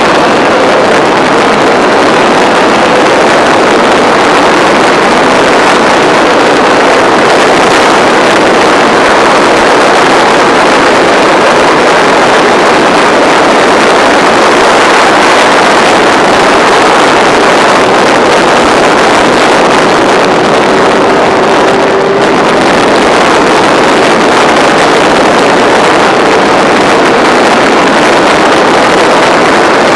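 Racing motorcycle engine held at high revs at race speed, heard from an onboard camera with heavy wind rush over the microphone; the sound is loud and steady, with one brief dip about two-thirds of the way through.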